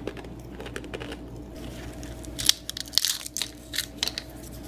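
Crisp crackles and snaps of a fortune cookie being broken apart by hand, bunched in the second half.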